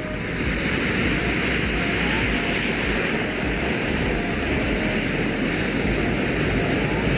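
A large packed cylinder of safety matches burning, flame jetting out of its open end with a steady rushing hiss that builds up over the first second and then holds.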